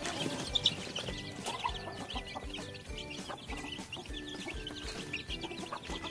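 Ayam kampung chicks about two weeks old peeping continuously in many short high calls, over background music with a steady beat.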